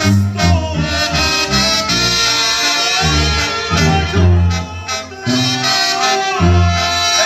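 Mexican banda brass band playing live: a sousaphone pumps the bass line under trumpets and other winds, with a bass drum keeping the beat.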